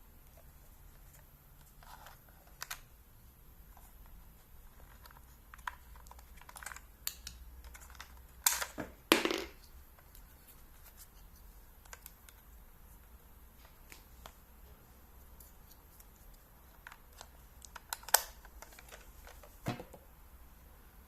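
Scattered clicks and taps from a digital alarm clock being handled, with a cluster of louder knocks and clicks about eight to nine seconds in and again near the end.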